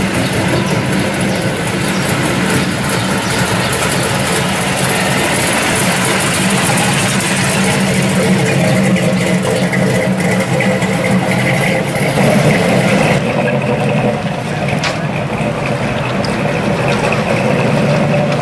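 A 1972 Chevrolet Nova SS pro street car's engine running through its exhaust with a steady, loud low rumble as the car idles and creeps along, swelling slightly about two-thirds of the way through.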